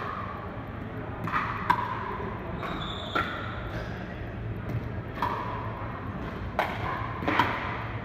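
Pickleball paddles hitting the hollow plastic ball in a rally: about six sharp, ringing pops at an uneven pace, echoing in a large hall. A brief high squeak about three seconds in.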